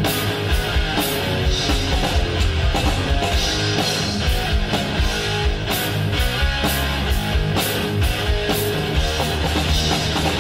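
1980s heavy metal band recording: distorted electric guitars and bass over drums, with cymbal strokes keeping a steady, driving beat.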